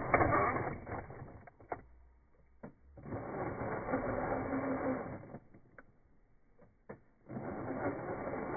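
RC rock crawler's small electric motor and gear drive whirring in bursts of throttle, three times with pauses between, and a few sharp clicks in the gaps.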